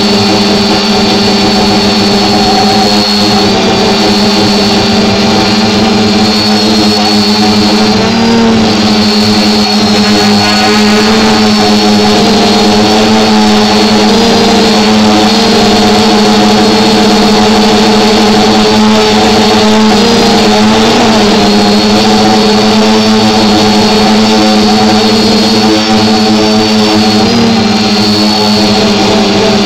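A multirotor drone's motors and propellers running steadily, heard close up through the drone's own camera microphone, a loud buzzing whine whose pitch wavers briefly a couple of times as the motors adjust.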